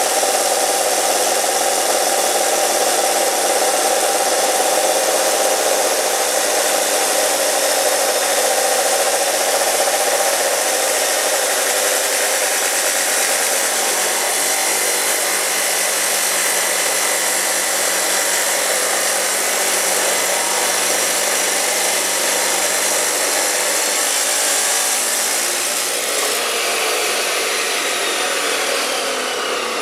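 Steel cut-off saw cutting through steel: a loud, steady grinding scream of blade against metal. Near the end the pitch begins to fall away.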